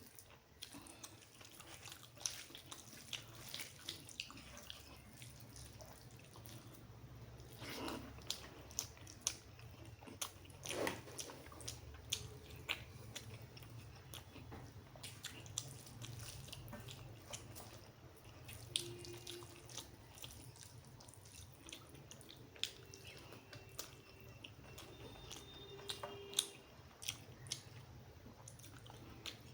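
Wet chewing and mouth clicks of someone eating rice with spicy egg curry in big bites, many small smacks scattered throughout, over a steady low hum.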